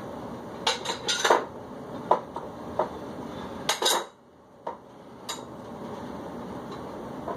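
Light clinks and knocks of small hard objects being picked up and set down on a tabletop: a quick cluster, a few scattered single taps, then another pair, over a steady background noise that drops away for about a second midway and slowly comes back.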